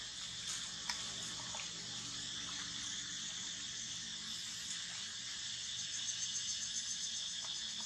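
Steady insect chorus buzzing, joined about six seconds in by a pulsing chirp about five times a second; a faint click about a second in.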